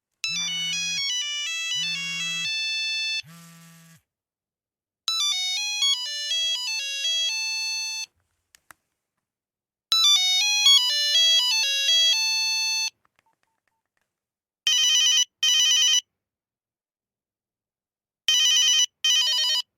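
Nokia 3310 mobile phone ringtones: three monophonic melodies of stepped beeping notes, the first with a low buzz under it. These are followed by two pairs of short, buzzy double rings.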